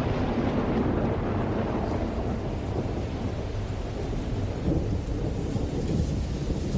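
Steady rain with a low, continuous rumble of distant thunder.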